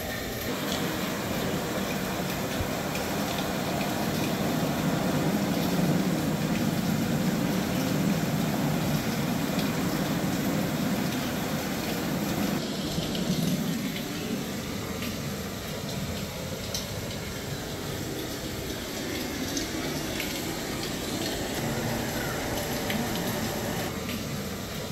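Steady rush of water from a habitat waterfall pouring into a pool and filling it, loudest in the first half, with a few faint brief clicks.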